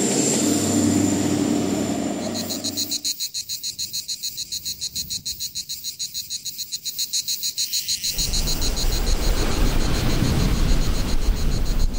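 A diesel TER passenger train passing with a steady engine drone. About three seconds in the train sound gives way to insects chirring in fast high-pitched pulses, about eight a second. Near the eight-second mark a wind rush on the microphone comes in over the chirring.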